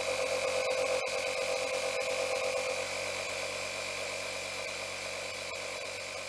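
Makita MP180D 18V cordless air inflator running steadily, its compressor pumping air into a motorcycle brake caliper to force the piston out. Air is escaping through a gap at the fitting, so the pressure is not building.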